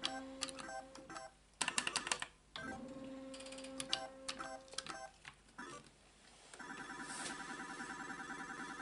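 Solex 2 pachislot machine at play: electronic tones and clicks while the reels spin, with two bursts of rapid clicking about a second and a half in. After the reels stop, about two-thirds of the way through, a repeating electronic warbling jingle starts and keeps going.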